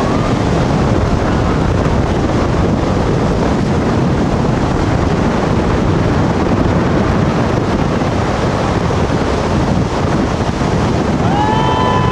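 Steady rushing noise of wind on the microphone over the river rapids below. Near the end a person lets out a long, high call.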